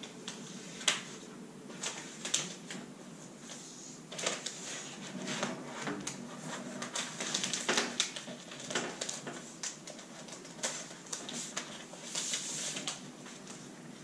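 Rustling and crinkling of a new laptop's protective wrapping as it is peeled off and handled, with irregular small clicks and taps.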